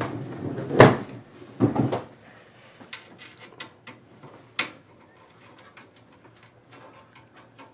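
Knocks and light clicks of hands working on a steel PC case's motherboard tray while the standoff screws are fitted. One loud knock about a second in and another just before two seconds, then a run of small sharp clicks.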